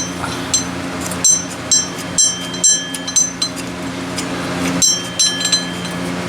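Irregular metallic clinks and taps of a wrench on the bolts of an engine accessory bracket, about a dozen in a few seconds with short ringing tones, over a steady background hum.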